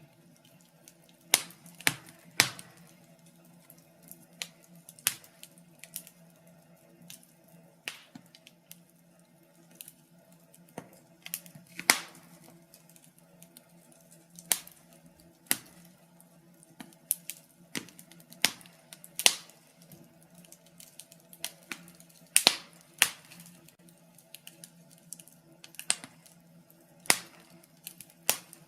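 Wood fire in a fireplace crackling: irregular sharp pops and snaps of burning logs, a few much louder than the rest.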